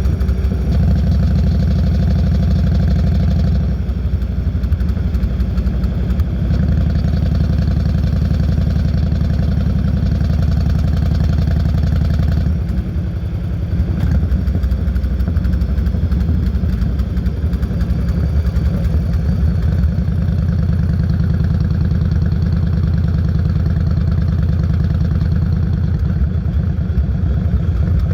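Yamaha Road Star 1600's carbureted, air-cooled V-twin running through Vance & Hines Longshots exhaust while the bike cruises. The sound drops briefly about four seconds in, and again for a second or so midway.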